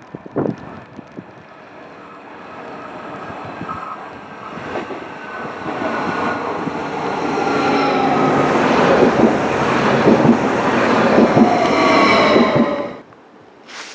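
Stadler FLIRT electric multiple unit approaching and pulling in alongside the platform, growing steadily louder. Its motor whine falls slowly in pitch over the wheel and rail rumble. The sound cuts off suddenly about a second before the end.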